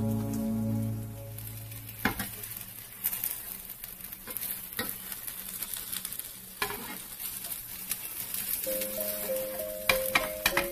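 Egg and enoki mushroom batter sizzling in a nonstick frying pan, with a few sharp knocks and scrapes from a metal slotted spatula against the pan as the omelette is pressed and folded. Soft background music with held notes at the start and again near the end.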